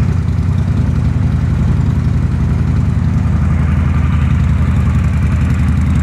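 Two Harley-Davidson V-twin motorcycle engines idling together at a steady, even pace.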